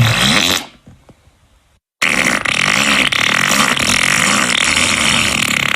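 Fart sound effects: a short loud one right at the start, then after a brief silence a long one with a wavering low pitch lasting about four seconds.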